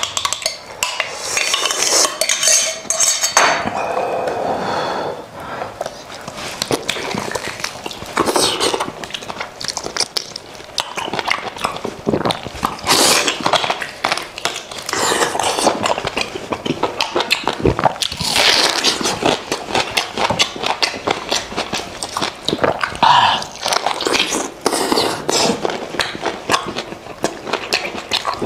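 A metal spoon clinks and scrapes in a glass jug as sauce is spooned out. Then comes close-miked eating of a goat head: biting, chewing and lip-smacking.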